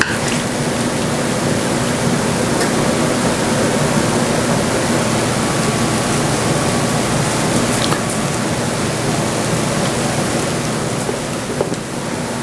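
A steady rushing noise with a faint hum under it, with a few light clicks and taps as the mushroom and onion mixture is spooned onto the chicken breasts.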